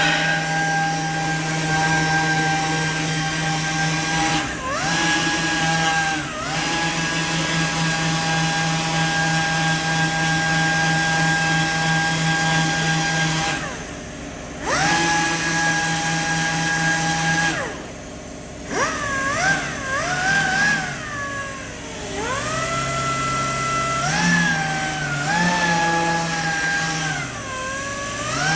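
Handheld electric power tool motor running steadily. Its pitch dips briefly twice, as if bearing down on work. In the last third it speeds up and slows down several times.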